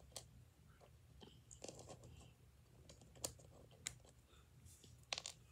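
Faint, near-silent handling noise: a handful of short, sharp clicks and light crinkles from small items being handled, over a steady low hum.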